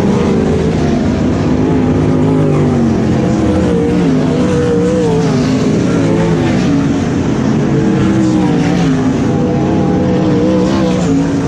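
LS1 V8 sprint cars lapping a dirt oval, several engines running loud at once, their pitch rising and falling as the cars accelerate and lift around the track.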